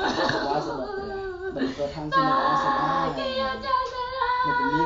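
A high-pitched voice holds long, wavering, drawn-out notes, with shorter vocal sounds before them.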